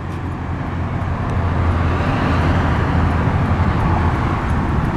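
Road traffic noise with a steady low rumble, swelling to a peak midway and easing off near the end, like a vehicle going by.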